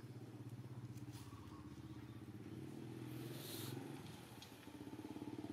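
An engine idling steadily nearby, a low pulsing hum, with a short hiss about three and a half seconds in.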